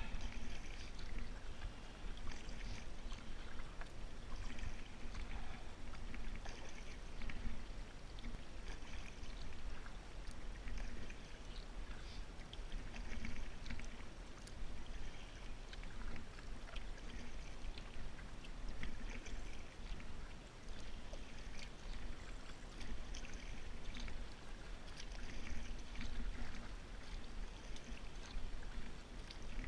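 Canoe being paddled: the paddle blade dips and swishes through still water every few seconds, with splashes and drips, over a steady low rumble.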